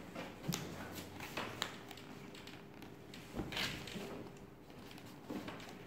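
Fingers working at the taped top of a cardboard shipping box: scattered light taps and scratches on the cardboard, with a longer rasping scrape about three and a half seconds in as the tape is picked and pulled.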